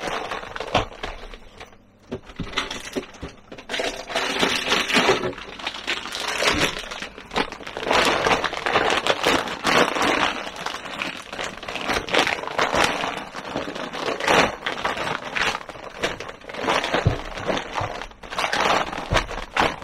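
Plastic crinkling and rustling as 5 kg plastic bags of boilies and an ice pack are pushed and packed down into an insulated cool bag. It comes in irregular bursts with a few sharper cracks.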